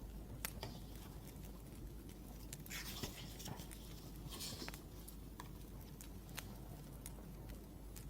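Wood fire crackling: scattered soft pops and clicks, with two brief scratchy rustles about three and four and a half seconds in.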